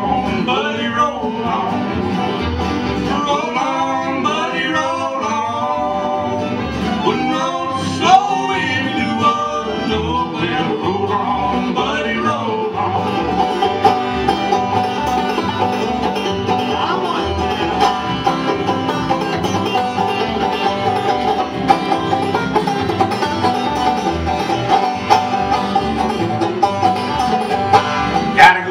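Bluegrass band playing live: banjo, fiddle, acoustic guitar and upright bass in an instrumental break after the sung chorus.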